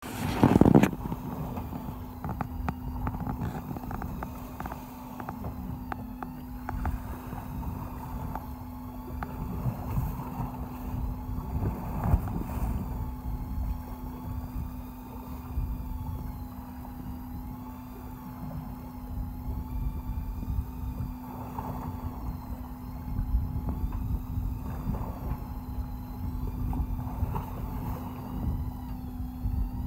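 Electric fishing reel winding in line against the pull of a hooked fish: a motor whine that wavers up and down in pitch as the load changes, over a steady low hum of the boat's engine and the splash of water. A loud knock right at the start.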